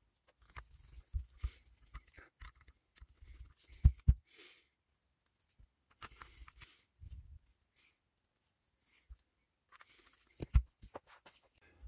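Small screwdriver and handling sounds while screws are driven into a lens's metal bayonet mount: scattered light clicks and brief scrapes and rustles, sped up to triple speed.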